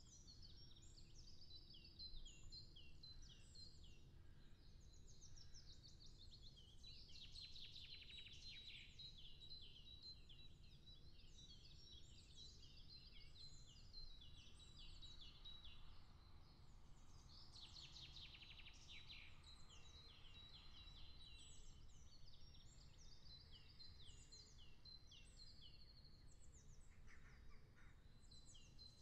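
Faint birdsong: small birds giving many quick, repeated downward-sliding chirps, thickest about a third of the way in and again near the end, over a faint low background rumble.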